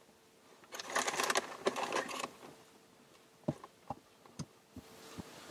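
Plastic pretzel bag crinkling and rustling for about a second and a half, then a few separate short crackles.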